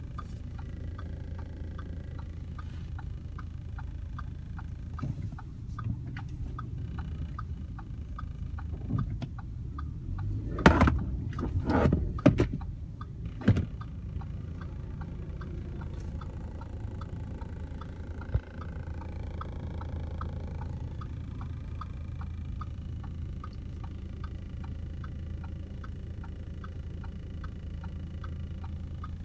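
2015 Audi Q5 on the move, heard inside the cabin: a steady low road rumble with a light ticking rattle repeating about two or three times a second, and a few louder knocks a third of the way in. This is the rattle that the owner says is still there.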